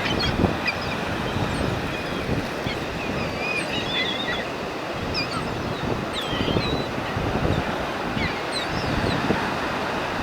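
Steady rush of ocean surf and wind on the microphone, with scattered short bird calls high above it.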